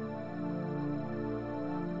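Ambient background music with slow, sustained chords.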